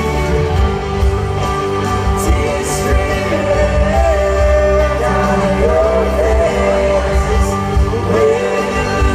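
Pop music playing, with a steady bass and a sung or played melody line coming in about four seconds in.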